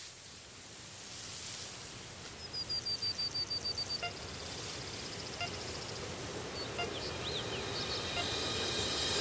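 A steady hiss of outdoor noise that slowly swells louder, with a fast high trill of about a dozen notes around three seconds in and a few short high chirps later.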